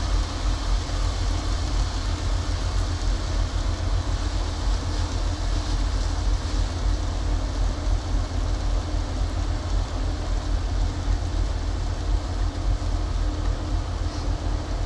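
Steady low rumble of an idling truck diesel engine, with a faint even sizzle of chicken frying in a pan on a portable burner.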